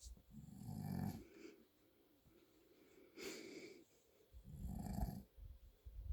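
A man snoring in his sleep: two loud snores, about a second in and again near the five-second mark, with a shorter, breathy exhale between them.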